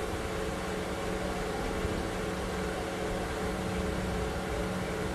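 Steady mechanical hum with hiss and a few faint constant tones: room background drone, unchanging throughout.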